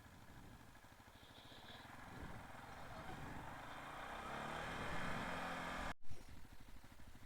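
CFMOTO CForce 500 ATV's single-cylinder engine running at low speed, then accelerating and growing louder with rising pitch from about two seconds in. The sound cuts out for an instant near six seconds, followed by a short knock.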